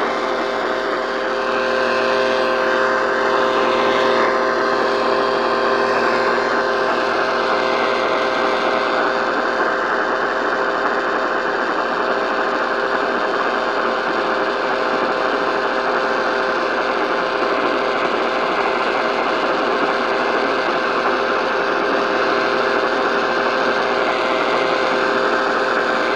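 AM radio static as received on an AM broadcast receiver: a steady hiss with several faint steady tones running under it.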